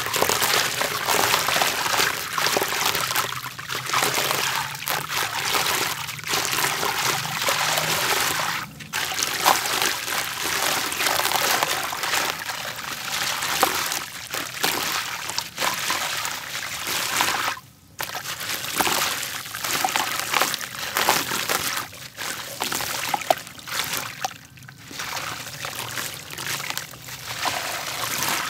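A gritty grey block crumbling between the hands, its crunchy grains pouring and trickling into a basin of water in a continuous patter of fine clicks and splashes. The sound breaks off briefly about 9 and 18 seconds in.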